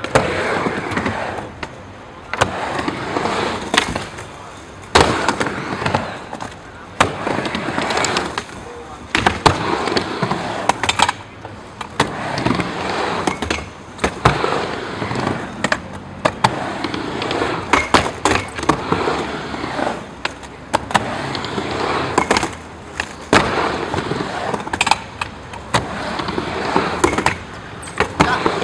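Skateboard rolling back and forth on a mini ramp, wheels rumbling on the ramp surface in swells, with many sharp clacks as the trucks hit and grind along the metal coping in 50-50 grinds.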